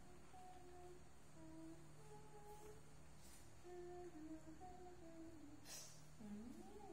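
A woman humming softly, a slow tune of held notes stepping up and down, with a short click near the end.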